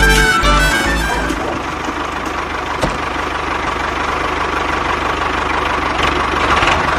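Background music stops about a second in, and a small engine takes over, running steadily with a fast, even knock.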